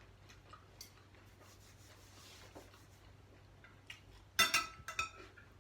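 Cutlery and dishes during a meal: faint scrapes and light clicks, then a louder clatter with a ringing clink about four and a half seconds in.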